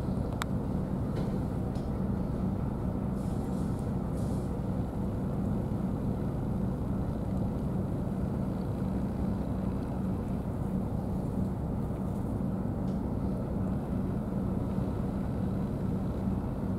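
A steady low engine drone that holds level throughout, with one sharp click just after the start.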